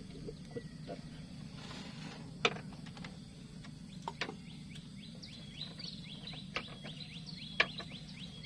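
Sharp clicks and knocks as a fishing rod is handled at a rod rack, over a steady low hum. From about halfway, a bird calls in a quick run of short chirps, about four a second.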